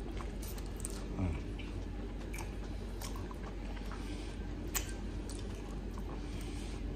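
Someone eating sauced chicken wings: chewing and sucking meat off the bone, with wet lip smacks and a few sharp clicks.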